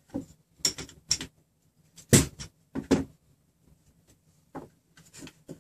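Irregular short metallic clicks and knocks as a nut on a steel threaded rod of the printer frame is turned to adjust the rod's length, with a wrench knocking against nut and rod. The loudest knock comes about two seconds in.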